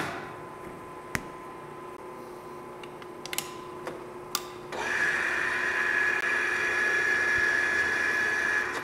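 A few sharp metallic clicks and knocks as the lathe's tool post and handles are set. About five seconds in, the metal lathe starts up and runs steadily with a high whine.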